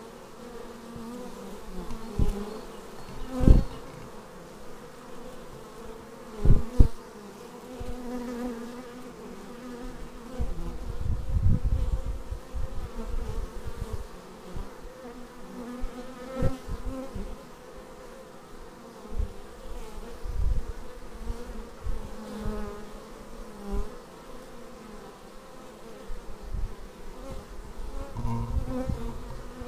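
Many honeybees buzzing at a hive entrance in a steady hum, with sudden louder, lower rushes every few seconds as single bees fly close past.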